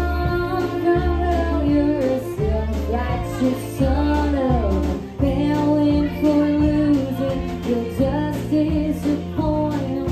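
A woman singing a country song live into a microphone, holding and bending notes, over band accompaniment with a bass line that steps between notes.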